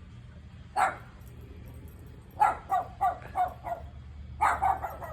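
Small dog barking in bursts: one bark about a second in, then a quick run of about five barks, then another cluster of barks near the end.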